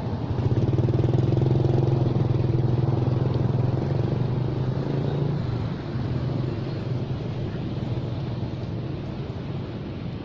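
Small motorcycle engine running steadily close by, then fading away after about five seconds.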